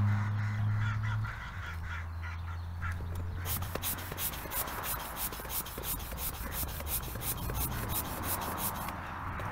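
Hand-operated barrel pump inflating an inflatable canoe: a fast, even run of pump strokes from about three seconds in until near the end. A low steady drone at the start stops about a second in.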